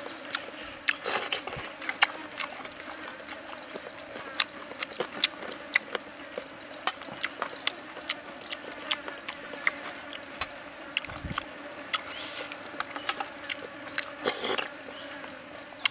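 Close-up eating sounds: chewing and lip smacking as chicken is torn apart by hand and eaten, many sharp irregular mouth clicks, with a few short hissing sounds about a second in and near the end.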